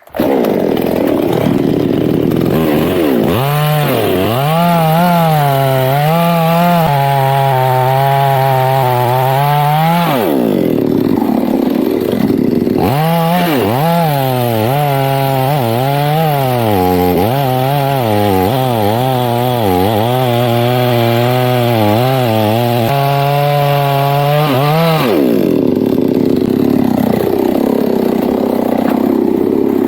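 Two-stroke chainsaw cutting through the base of a teak trunk at high revs, its pitch rising and sagging under load. Twice, about ten seconds in and again near the end, the engine drops to a lower, rougher note.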